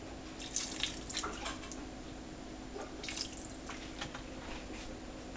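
Apple cider vinegar poured from a bottle, splashing into a steel bowl of water holding chicken feet, in two short spells: about half a second in and again around three seconds in. A faint steady hum runs beneath.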